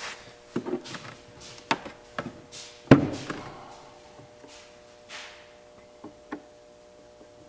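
Scattered clicks and taps of hands and a marker on a hard plastic boat console, with one loud knock about three seconds in as its hinged storage lid is flipped open, followed by a few lighter ticks.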